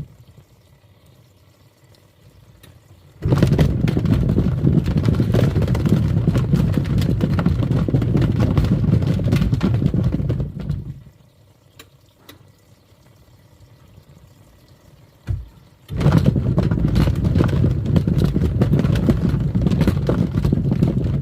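Twin-tub washing machine churning foamy water in on-off bursts: it starts about three seconds in and runs for about eight seconds, stops, gives a brief jolt, then starts again for the last five seconds.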